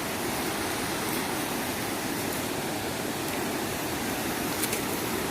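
Steady rushing of a fast river's water, an even noise with no let-up.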